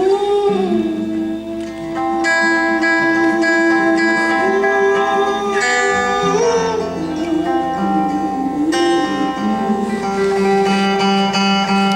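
Live acoustic music: an acoustic guitar under a voice holding long wordless notes that bend and waver in pitch.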